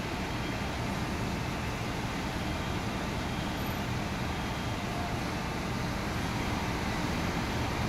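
Steady low rumble of engines and street traffic, with no distinct events.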